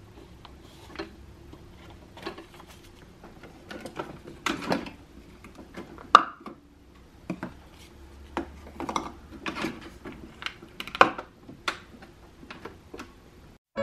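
Plastic clicks, knocks and rattles of a Keurig single-serve coffee maker being loaded: a K-cup pod taken from a wire pod carousel and set into the machine, with the sharpest snap about six seconds in and another about eleven seconds in.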